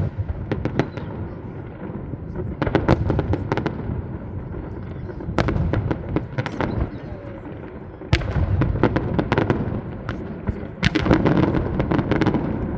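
Fireworks display: continuous low rumbling bangs with many sharp cracks, several of them coming in quick clusters, notably about two to three seconds in and again near the end.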